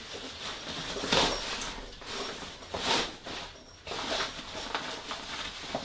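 Fabric rustling and rubbing in a few bursts as a folded cool bag is stuffed into the fabric side pouch of a folding wagon.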